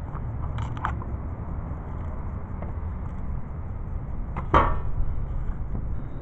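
Heavy kukri and ramdao blades being drawn from their sheaths and handled: a few light clicks, then one sharp knock with a short ring about four and a half seconds in, over a steady low rumble.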